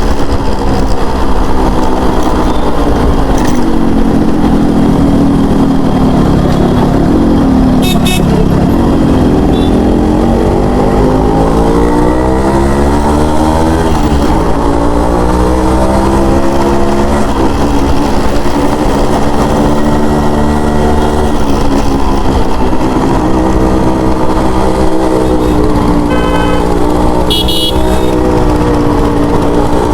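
Yamaha RX100's two-stroke single-cylinder engine running on the move, its revs repeatedly rising and falling with throttle and gear changes. A vehicle horn sounds briefly about eight seconds in and again near the end.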